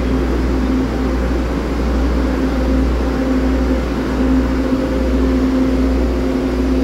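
Three-car DRC1000-series diesel railcar set passing slowly at close range: a steady diesel engine drone with a constant hum over a deep rumble.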